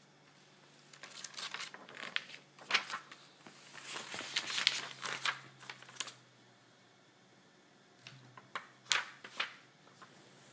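Crinkling, rustling handling noises with sharp clicks, in two spells with a short quiet gap between them.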